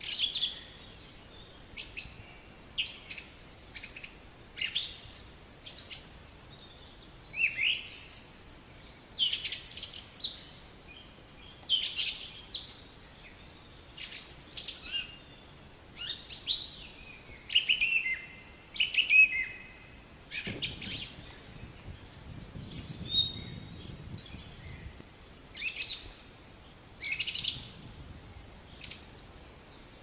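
Black-capped chickadee calling over and over in short bursts of high chirps, one burst every one to two seconds. A faint low rumble sits under the calls for a few seconds past the middle.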